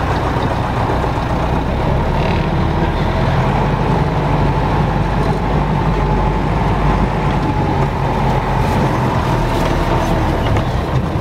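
Engine of a large truck-based motorhome running steadily, heard from inside the cab as it drives slowly forward, with a faint steady whine over the low rumble.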